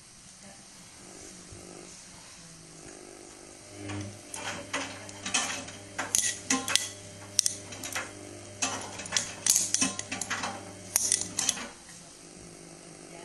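Samsung WW80J5555FWEU washing machine turning its drum on a Daily Wash 40°C cycle. The motor hum starts about four seconds in and stops shortly before the end, with a run of sharp clinks and clatters while the drum turns.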